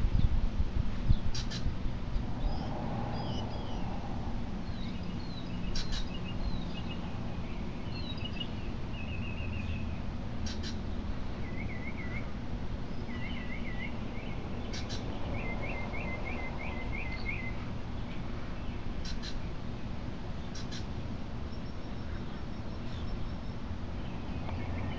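Small birds chirping in short, quick phrases, one of them repeating a rapid run of rising notes. A steady low outdoor rumble runs underneath, with a few faint clicks.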